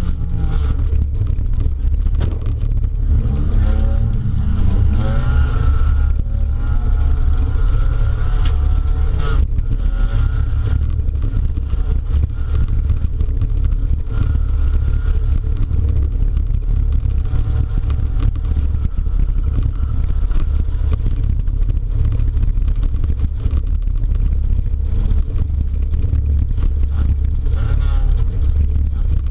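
Speedway derby car's engine heard from inside the car, revving up and down under a constant heavy low rumble, with a sharp knock about nine seconds in.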